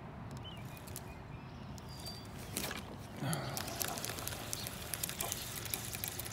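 Close handling noise from a fishing rod and spinning reel: scattered clicks and rustling, which get louder about three seconds in as a sleeve brushes past the microphone.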